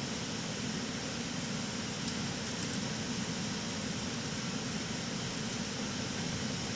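Steady flight-deck noise of an airliner in cruise: an even rush of airflow and ventilation hiss, with a few faint ticks about two seconds in.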